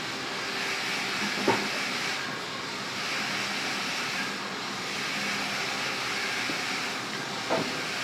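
Café background noise, a steady hiss, with two sharp clinks or knocks: one about a second and a half in and one near the end.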